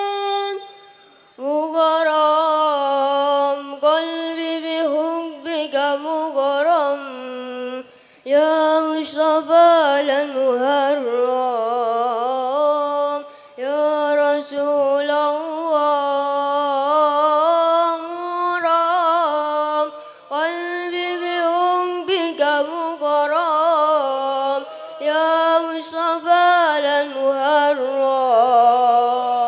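A boy singing a sholawat, an Islamic devotional song, solo into a microphone. His high voice runs through ornate, wavering melismas, with brief pauses for breath between phrases.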